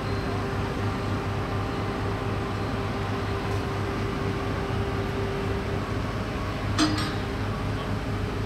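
Heavy diesel machinery, the mobile crane's engine, running steadily with a pulsing low hum and a held whine that stops about two-thirds of the way through. A single sharp metallic clink about seven seconds in.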